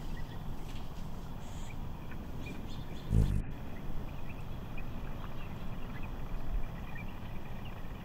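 Steady low wind rumble on the microphone, with a heavier low thump about three seconds in. Faint, scattered bird chirps sound over it.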